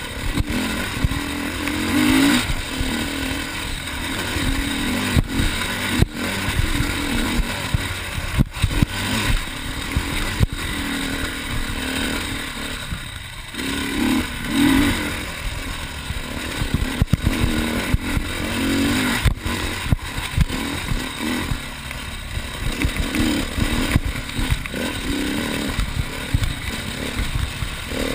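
Enduro motorcycle engine running under load as it is ridden, its revs rising and falling with the throttle, with frequent knocks and clatter as the bike bounces over rough ground.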